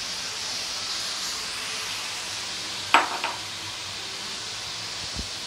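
Ridge gourd and masala frying in hot oil in a kadai, sizzling steadily. About three seconds in, the stirring spoon clanks sharply against the pan, with a lighter knock just after.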